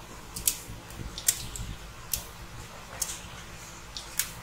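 A few light, sharp clicks and taps, about one a second, from small objects being handled on a repair bench.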